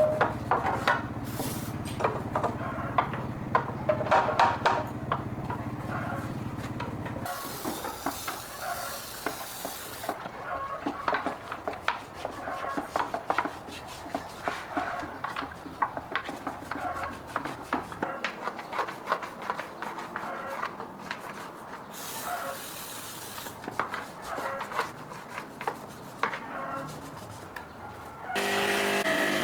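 Workshop handling noise: repeated clicks and knocks of tools and parts being worked on. A low hum stops a few seconds in, there are two short bursts of hiss, and a motor starts running steadily just before the end.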